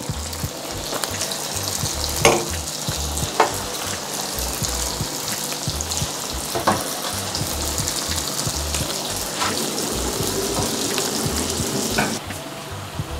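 Doughnut rings sizzling as they fry in sunflower oil in a stainless steel pan. The sizzle swells in the first couple of seconds as more rings go in, then holds steady, with a few sharp clicks scattered through it, and falls away near the end.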